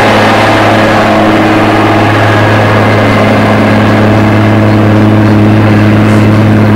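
Heavy engine running at a constant speed: a loud, unchanging low hum with a rush of wind and road noise over it, from vehicles on the move around a Claas combine harvester.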